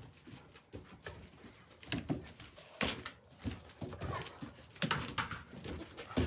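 Dogs playing with their toys: scattered short knocks, rustles and scuffles.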